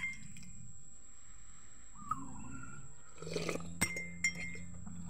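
A few sharp clinks of dishware, clustered about three and a half to four seconds in, each ringing briefly. A short falling chirp-like call about two seconds in.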